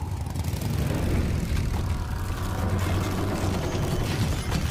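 Deep engine rumble, growing louder in the first second and then holding steady, with a sharp crack near the end.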